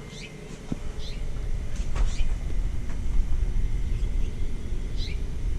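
Small songbirds giving short, high, falling chirps several times, over a steady low rumble.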